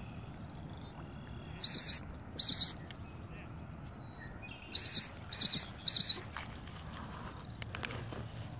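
A bird calling: five short, high, warbling calls, two together and then three together a couple of seconds later.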